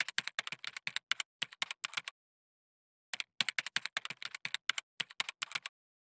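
Keyboard-typing sound effect: rapid key clicks, about seven a second, in two runs of a couple of seconds each with a pause of about a second between them.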